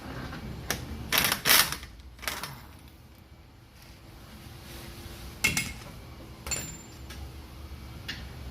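Several sharp metallic clanks and knocks, the loudest cluster about a second in and another past the middle, as hand tools and steel parts are handled while a car's front wheel hub assembly is taken off.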